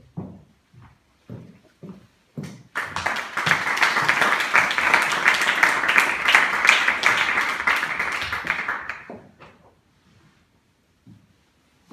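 A few soft thumps, then an audience applauding, starting about three seconds in and dying away near nine seconds.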